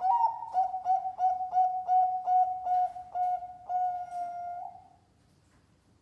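Zebra dove (perkutut) cooing its song: a clear opening coo, then a run of about ten short, evenly spaced coos, about three a second, ending on one longer held coo that dies away about five seconds in.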